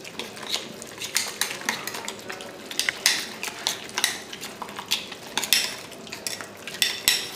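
Boneless chicken strips being mixed into an egg-white and cornflour marinade in a glass bowl, with many irregular clinks and taps against the glass.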